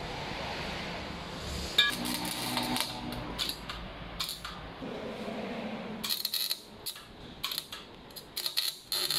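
Custom motorcycle exhaust pipe clanking and scraping against the bike as it is fitted by hand: irregular metallic knocks and rattles, with one short ringing clank about two seconds in.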